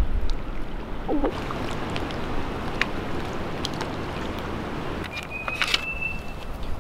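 Steady wind over choppy lake water, small waves splashing, with wind rumbling on the microphone.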